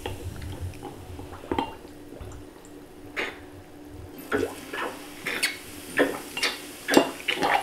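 Plastic droppers being squeezed to squirt vinegar onto baking soda: a series of short, wet squirts and splutters, about eight or nine of them.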